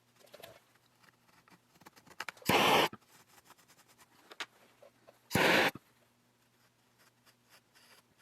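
Faint scraping and light tapping of a hot wire tool working melted plastic on a chainsaw fuel tank, under a steady low electrical hum. Twice, about two and a half and five and a half seconds in, a short loud burst of hiss cuts in for about half a second.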